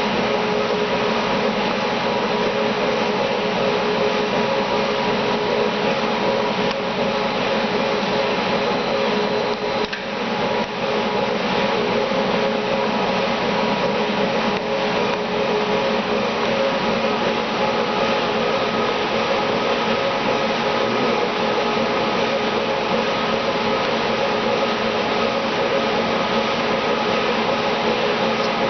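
A machine running steadily, a constant motor whir with a few steady tones over a broad rushing noise.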